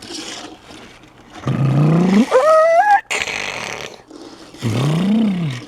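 A man's voice imitating a car engine: a revving noise that climbs in pitch in steps, then a shorter one that rises and falls.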